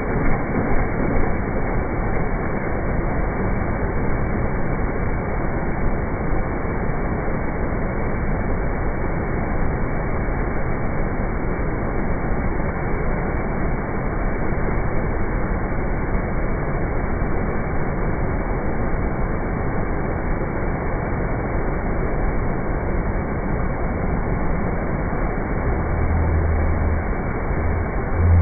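Steady rushing roar of heavy floodwater pouring through the barrage's open flood gates. A low hum joins it near the end.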